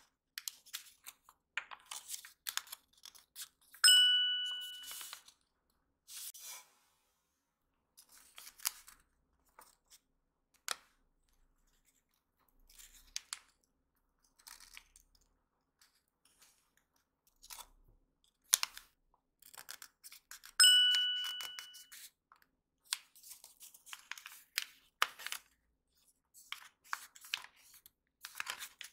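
Origami paper crinkling and rustling in short scattered bursts as it is creased and folded by hand. Twice, about 4 s in and again about 20 s in, a bright bell-like ding rings out and dies away over about a second; the two dings are identical and are the loudest sounds.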